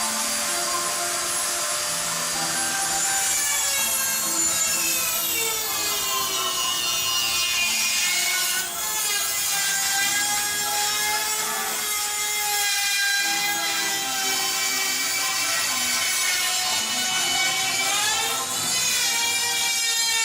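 High-speed rotary tool cutting into a metal computer case panel. Its whine sags and rises in pitch over several seconds as the bit is pressed in and eased off, with a brief drop about nine seconds in.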